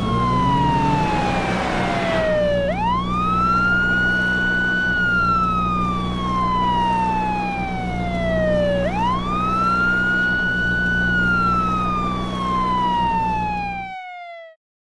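Police car siren wailing: the tone swoops up quickly twice and each time falls slowly over about six seconds, over a low steady hum. It cuts off suddenly near the end.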